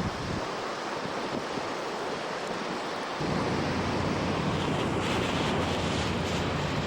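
Heavy storm surf from nor'easter waves breaking along the shore, with strong wind buffeting the microphone; the low wind rumble grows heavier a little after three seconds in.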